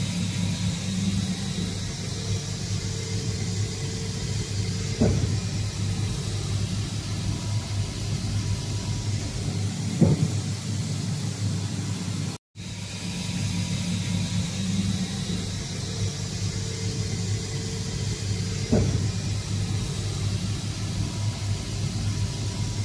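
GNUTTI G359 transfer machining center cutting metal parts: a steady machine hum with a hiss over it, broken by three short, sharp knocks. The sound drops out completely for a moment about halfway through.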